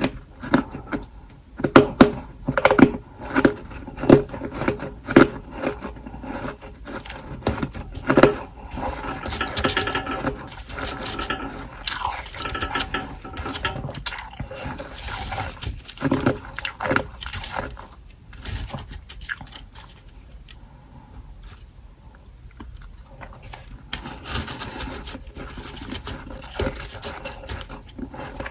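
Close-miked biting and chewing of freezer frost ('humidifier frost'). Sharp crunches come several times a second at first, then give way to softer, grinding chewing that grows quieter.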